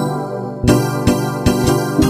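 Closing music: a solo keyboard improvisation of sustained chords, with new chords struck about every second.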